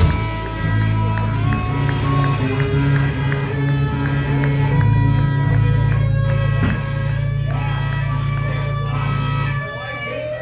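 Rock band playing an instrumental passage: electric guitar over sustained bass notes and a steady drum beat. The bass cuts out near the end.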